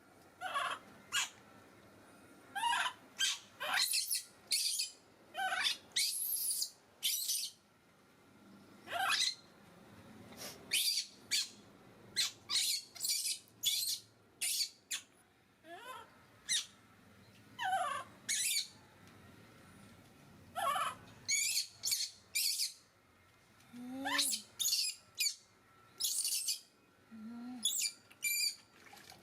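Baby monkey giving short, high squealing calls over and over, each one sliding steeply down in pitch, in irregular bouts with brief pauses between.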